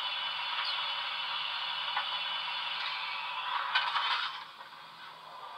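Sound-fitted Dapol Manor model steam locomotive standing, its DCC sound decoder playing a steady steam hiss through the model's small speaker, with a few clicks near the end. The hiss dies down about four and a half seconds in.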